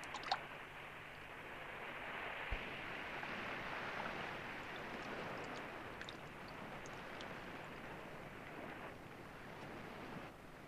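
Water lapping and washing as a steady rush of noise, with a few faint clicks near the start and a dull thump about two and a half seconds in.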